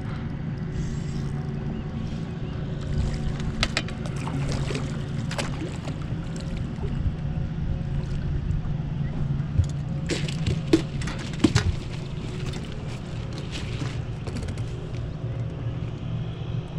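A boat's motor hums steadily. Over it come several sharp knocks and rattles as a landing net is brought aboard and a cisco is handled in the mesh, the loudest a little past the middle.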